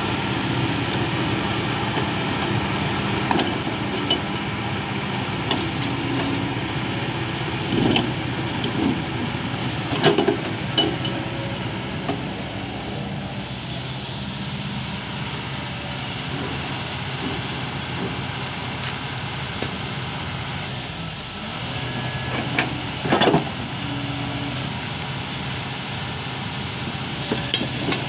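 Kobelco SK220 excavator's diesel engine running steadily while the machine moves, with occasional metallic clanks and squeaks from its tracks and boom, loudest about ten seconds in and again later on.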